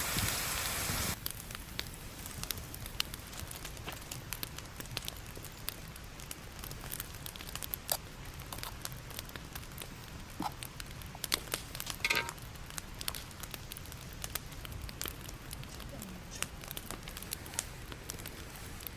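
Wood campfire crackling, with scattered sharp pops and a few louder ones about eleven to twelve seconds in. A loud hiss at the very start cuts off after about a second.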